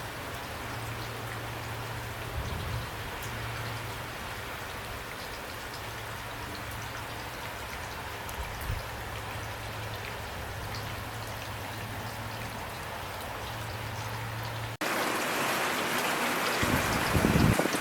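Steady rain falling and pattering, with a low hum underneath. About fifteen seconds in it switches abruptly to heavier, louder rain, and a deep rumble swells near the end.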